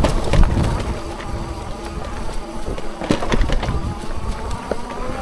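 Electric fat-tyre folding bike riding over rough stony ground: the hub motor whines steadily under power, over a low rumble of tyres and wind, with scattered knocks and rattles from the bike on the stones.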